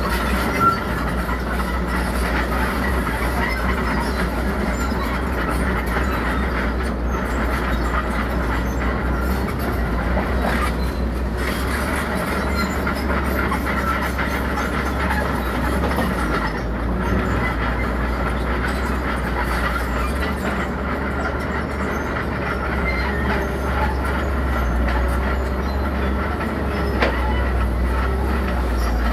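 Tracked earthmoving machine at work: its diesel engine running with a steady low rumble, and a steady high squeal from the steel tracks.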